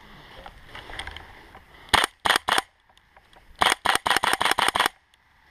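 Gas blowback airsoft rifle (GBLS DAS GDR-15) firing: three quick sharp shots about two seconds in, then a rapid string of about ten shots lasting a little over a second.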